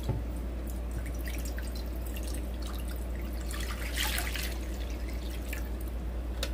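Water poured from a plastic pitcher into an empty non-stick pot, splashing steadily on the pot's bottom, heaviest about four seconds in as the pitcher is tipped further.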